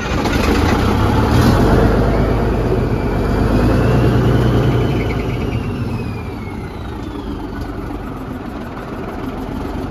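Old Scammell lorry's diesel engine running just after starting, at raised revs with a faint whine that rises and then falls, then easing to a lower, steadier idle about six seconds in.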